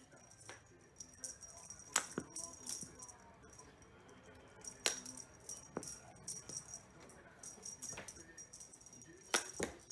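A cat playing with a feather wand toy: a patchy, light rattling from the toy, with several sharp knocks as the cat's paws and body hit the wooden floor, the loudest about two seconds in and twice close together near the end.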